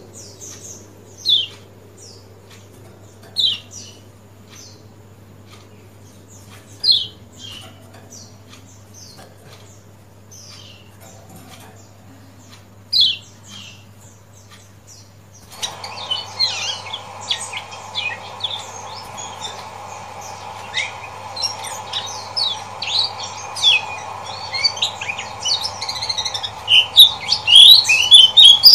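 Lemon-bellied white-eye (kecial kuning) giving its 'ciak ciak' call. It starts as single sharp, falling chirps a few seconds apart. About halfway it turns into a fast, dense run of chirps that grows louder toward the end, over a steady low hum.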